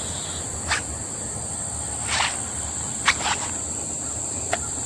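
Insects droning outdoors in one steady high-pitched tone, with five short scuffs or taps at irregular moments over a low rumble.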